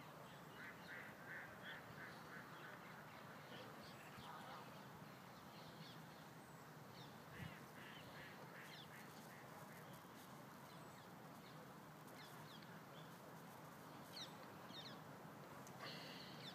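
Quiet outdoor ambience with faint bird calls: short calls in quick series near the start and again around eight seconds in, and a few high chirps near the end.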